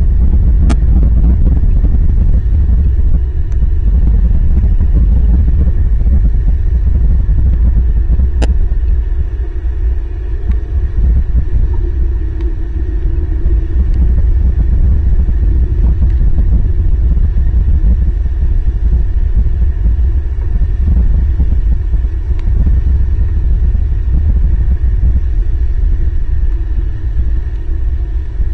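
Heavy rain on an outdoor camera's microphone and housing: a loud, steady low rumble, with a sharp tick about a second in and another about eight seconds in.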